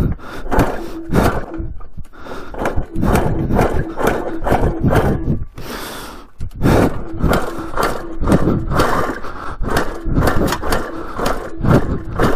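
1980 Suzuki RM125 single-cylinder two-stroke being kicked over and firing in loud, irregular bursts, revving up high and shutting off again. The owner takes the sporadic running for a fouled spark plug.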